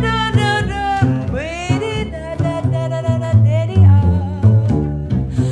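A woman's jazz voice singing a blues melody with vibrato, sliding up into a note about a second and a half in, over a double bass playing a steady line of low notes.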